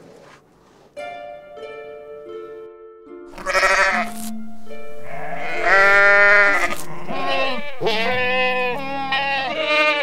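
Livestock bleating over soft background music with held notes. About a third of the way in comes a short bleat, then a long wavering bleat, then a run of quivering bleats, which are the loudest sounds.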